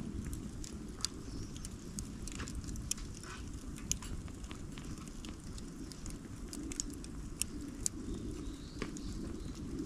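Bonfire of cut bamboo from a bamboo-grove clearing, crackling with irregular sharp pops over a steady low rumble of the flames.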